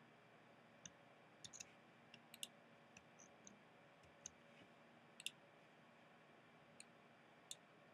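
Faint clicks of a computer mouse and keyboard, about a dozen short sharp ones at irregular intervals.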